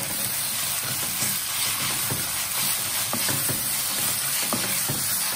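Sliced onions, green chillies and tomato sizzling in hot oil in a stainless steel kadai as they are stirred with a spatula, with scattered short scrapes and taps of the spatula on the pan.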